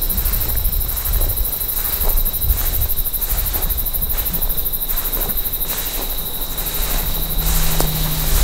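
Insects trilling: a high, fast-pulsing chirr with a thin steady whine below it, over a constant low rumble on the microphone.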